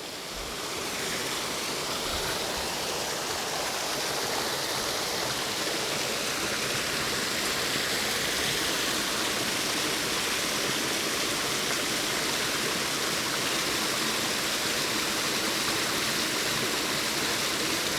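Water rushing over a small creek waterfall in a steady, even rush, growing louder over the first second and then holding level.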